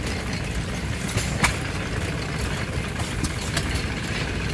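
Old stationary gas engines running with a low rumble, with scattered clicks and one sharper click about one and a half seconds in. A belt-driven gear pump is pouring water from a pipe into a metal tub.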